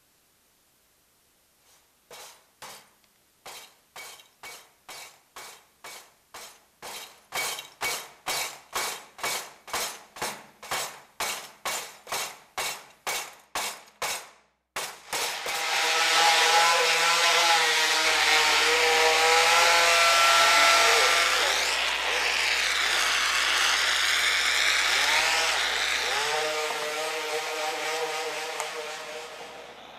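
Rhythmic tool strokes, about two a second, louder from about seven seconds in, that stop abruptly about halfway through. They give way to a loud, dense, distorted noise with wavering tones and a low hum through its middle part, an electronically deformed sound.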